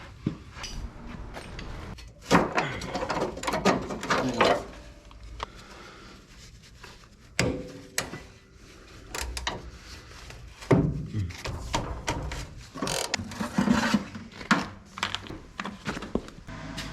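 Hand tools working on the rusted front end of an old pickup: irregular metal knocks, scraping and ratcheting, with sharp louder strikes about two, seven and eleven seconds in.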